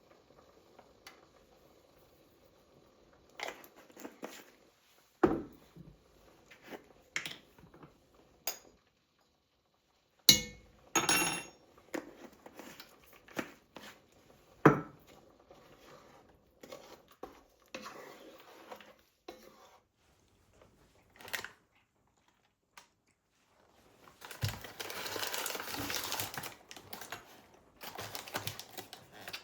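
Household handling sounds: scattered knocks and clinks of objects being set down and moved, then several seconds of crinkling rustle near the end.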